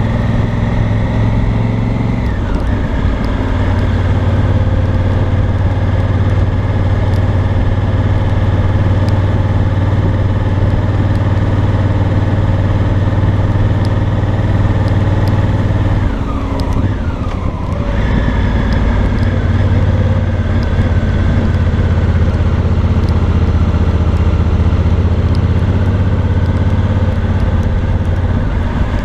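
2018 Honda Africa Twin Adventure Sports' 998 cc parallel-twin engine and exhaust running steadily at low riding speed. The engine note drops briefly about two seconds in and again around sixteen to eighteen seconds in as the revs fall, then settles back.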